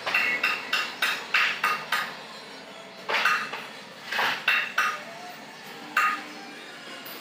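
Pieces of metal clinking and clanking as they are handled: a quick run of sharp, ringing knocks, then a few more spaced out, the last about six seconds in.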